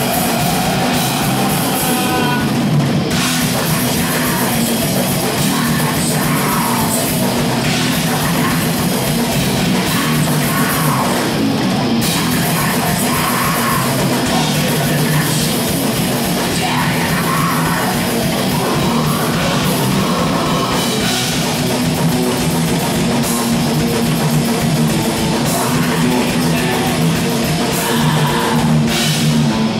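A death/thrash metal band playing live: distorted electric guitars and a drum kit, loud and dense with no breaks.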